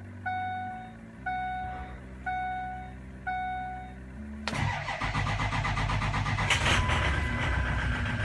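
The truck's warning chime rings about once a second over a low steady hum. About four and a half seconds in, the 2004 Ford F-450's 6.0 L Power Stroke V8 turbodiesel cranks, catches and runs. This is a cold start on an engine with several failing injectors, the cause of its rough starting when cold.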